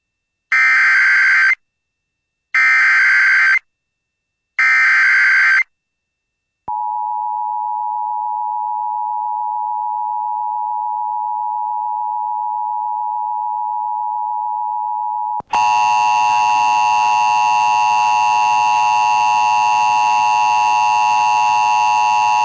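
Emergency Alert System header: three screechy one-second digital data bursts about a second apart, then after a pause the steady two-tone attention signal. About two-thirds of the way through, the tone switches abruptly to a louder, harsher, buzzier tone.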